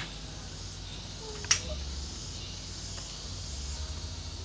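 Steady outdoor background of insects chirping, with a single sharp click about one and a half seconds in.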